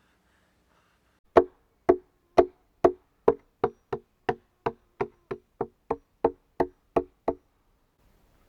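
About seventeen sharp knocks of a tool striking wood, speeding up from about two to about three a second.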